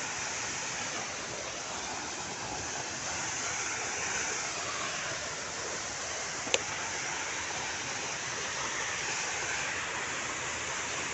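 Steady rush of falling water from a waterfall. A single sharp click about six and a half seconds in.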